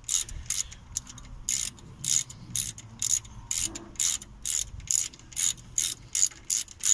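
Ratchet wrench clicking in quick back-strokes, about two to three clicks a second, as bolts on the front brake are run in before being nipped up.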